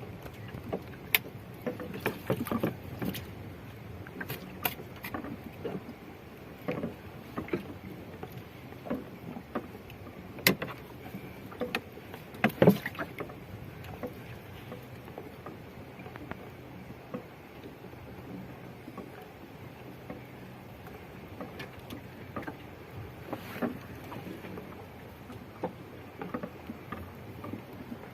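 Irregular knocks and clatter in a small boat, from fishing gear being handled against the hull, over a steady low background hum. One louder knock comes about halfway through.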